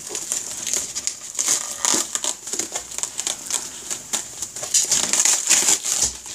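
Clear plastic wrap crinkling and crackling as it is pulled and torn off a plastic tray of button mushrooms, in a quick irregular run of crackles.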